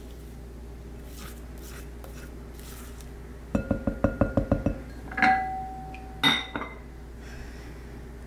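A spatula strikes the side of an Iwaki heat-resistant glass mixing bowl while batter is being stirred: a quick run of about eight clinks, then two louder knocks that leave the glass ringing. Before that, only soft stirring strokes in the batter.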